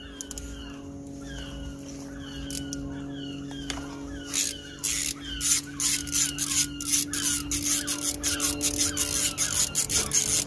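A hose clamp's screw being turned with a screwdriver: a run of short squeaks, joined by quicker clicks from about four seconds in, over a steady low hum.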